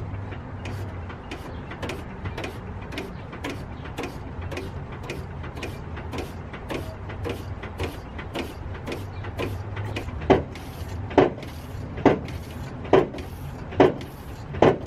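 Rhythmic clicking and gurgling from a Mazda Miata's clutch hydraulics being bled, as the clutch pedal is pumped and fluid and air are pushed through the bleed hose into a catch bottle. The clicks come fast and light at first, then turn louder and slower, about one a second, for the last few seconds.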